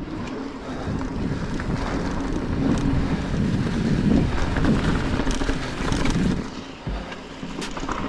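Mountain bike rolling along a dirt singletrack: wind rushing over the microphone on top of the tyre and trail rumble, with a few sharp clicks and rattles from the bike near the end.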